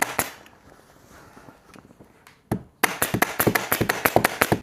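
Upholstery staple gun firing staples in quick succession, about eight a second, with a pause after the first moment, a single shot about two and a half seconds in, then another rapid run from about three seconds in.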